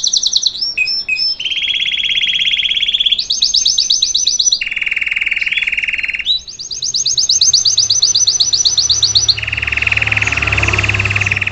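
Green 'salsa' Belgian canary singing its song, switching between rapid repeated high trills and long, even, lower-pitched rolls, each phrase lasting one to three seconds.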